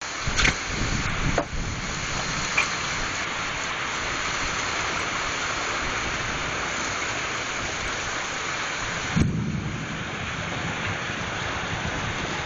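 Heavy rain of a summer thunderstorm pouring steadily, with a few sharp cracks near the start and a louder thunderclap about nine seconds in that rolls off into a low rumble.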